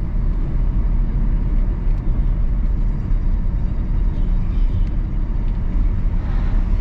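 Steady road and engine noise heard inside the cabin of a moving Mitsubishi Xpander Cross cruising on a paved road, a dense low rumble with no sudden events.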